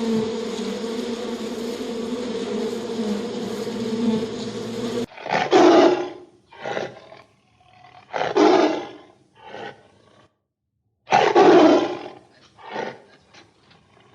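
A steady insect buzz, like a bee or fly, cuts off suddenly about five seconds in. A big cat then roars in a series of loud calls of up to about a second each, separated by short silences.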